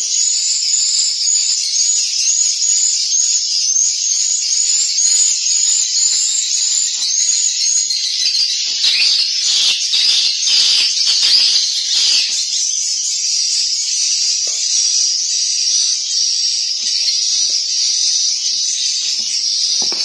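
Swiftlet calls filling a swiftlet nesting house: a loud, continuous high twittering made of short chirps repeating several times a second, with a run of dry clicks around the middle.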